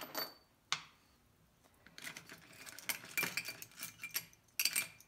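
Small metal engine parts clinking and rattling against each other in a metal parts tray as they are picked through by hand. The clinks are sparse at first and come thicker from about two seconds in.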